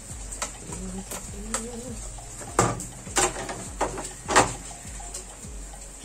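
A dove cooing in the background during the first two seconds, then about four sharp knocks and clatters of hard plastic as the washing machine's plastic control panel and top panel are handled and set in place.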